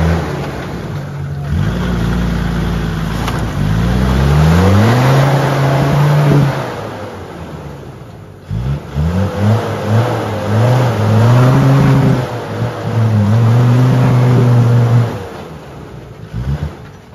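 Land Rover Defender's engine revved hard over and over as the 4x4 claws up out of a deep mud rut with its wheels spinning. The pitch climbs, holds and drops back several times, with a lull about eight seconds in and the revs falling away near the end.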